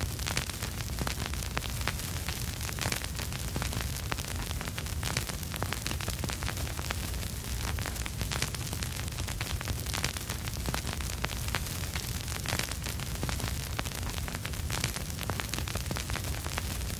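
Vinyl record surface noise with no music: a steady hiss dense with small crackles and pops, over a low rumble.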